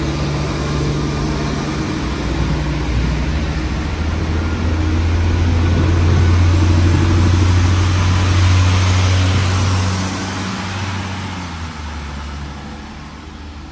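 Pesa SA132 and SA103 diesel railcars pulling out of the station: diesel engines working under load with a deep steady hum, joined by wheel and rail noise that peaks as the train goes by, then fading over the last few seconds as it draws away.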